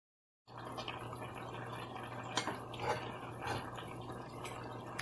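Brown stew chicken simmering in a pot on the stove, bubbling with a few short pops over a steady low hum; it starts about half a second in.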